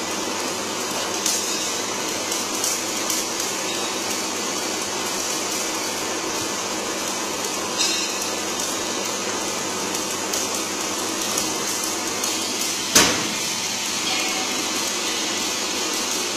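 CNC three-roll aluminium bending machine running steadily, its rollers feeding an aluminium strip round into an arc. Faint clicks are scattered through, and one sharp knock comes about three-quarters of the way through.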